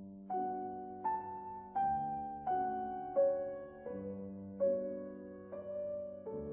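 Background piano music: a slow melody of single notes, a new note about every three-quarters of a second, each fading over held low notes.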